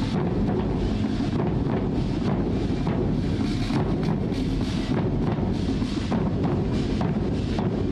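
Drums beating with a heavy low rumble.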